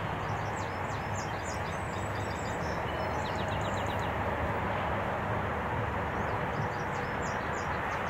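Small songbirds singing high chirping phrases, with a quick trill about three seconds in and another phrase near the end, over a steady rush of wind through foliage.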